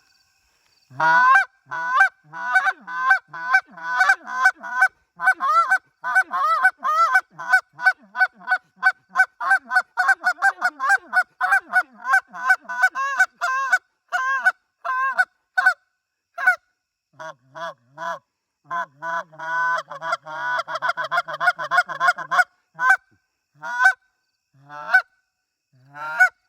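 Legendary Gear Old Man goose call in ivory acrylic, blown by hand: a long run of quick, even short honks and clucks for about fifteen seconds, a brief pause, then a denser rolling stretch, ending in a few spaced single honks.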